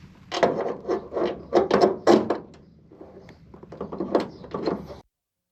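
A series of short, irregular scraping strokes from hand work on parts, about six in quick succession and then two more, cutting off to silence just before the end.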